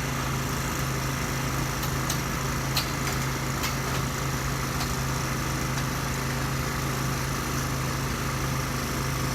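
A small engine running steadily at an even idle-like speed, with a few faint clicks over it.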